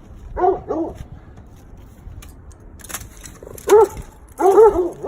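Dog barking in short, sharp barks: two quick barks about half a second in, then a run of barks in the last second and a half.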